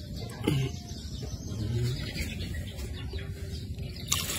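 A bird calling in low notes: a falling call about half a second in, then a lower held note near two seconds. Water from a tap starts running near the end.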